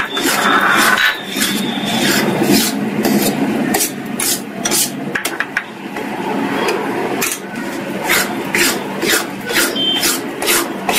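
A spatula scraping and stirring against a stainless steel kadai, mixing thick halwa with crumbled khoya, in a quick, uneven run of rasping strokes of about two to three a second.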